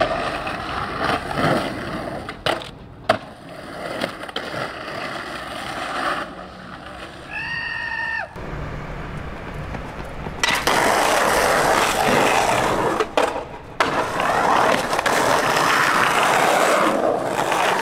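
Skateboard wheels rolling on rough street concrete, with a few sharp clacks of the board hitting the pavement. The roll grows louder and coarser from just past the middle. A short pitched tone sounds about eight seconds in.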